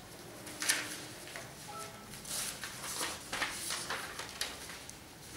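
Marker pen scratching on paper and loose paper sheets rustling as they are handled, a string of short scratchy sounds with a sharper one less than a second in.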